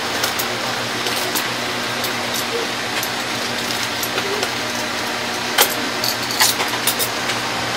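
Steady hiss with a low hum underneath, and a few sharp clicks and rustles in the last few seconds as an action-figure box is handled and opened.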